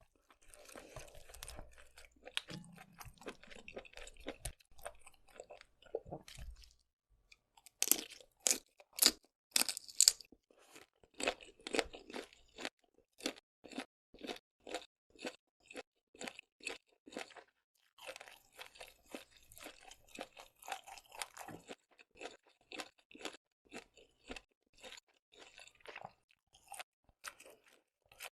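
A person chewing seafood close to the microphone, with wet, crunchy bites in a steady rhythm of about two a second. The bites are loudest about eight to ten seconds in, after a brief pause.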